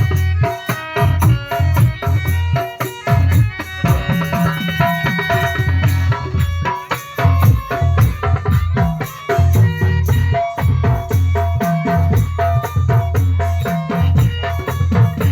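Indian song music with a steady hand-drum beat, a shaker and pitched melody instruments.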